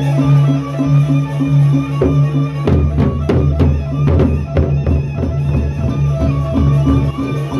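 Gendang beleq ensemble playing: large double-headed drums and clashing hand cymbals over a steady low drone, pulsing at about four beats a second. From about a third of the way in to past the middle comes a run of loud, sharp strokes.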